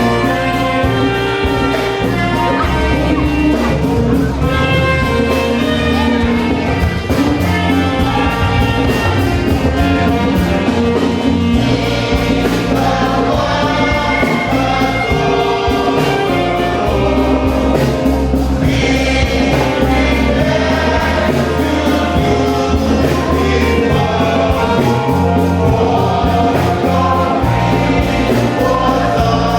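Choir singing gospel music with band accompaniment: a steady beat and strong bass under the voices.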